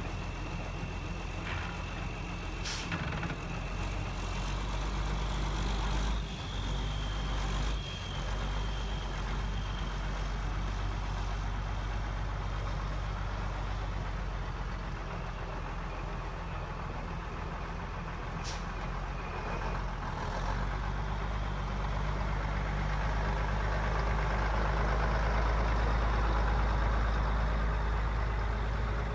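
1980 Mack RS600L truck's diesel engine idling steadily, growing somewhat louder about three-quarters of the way through, with a few brief clicks.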